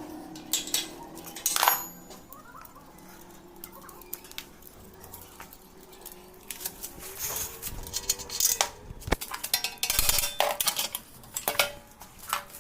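Scattered metal clinks and knocks of tools, bolts and exhaust parts during work on a motorcycle exhaust, coming thicker in the second half.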